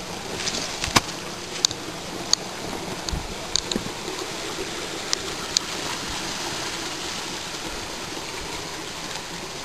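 Mountain stream running over boulders: a steady rush of water, with a handful of sharp clicks and knocks in the first six seconds or so.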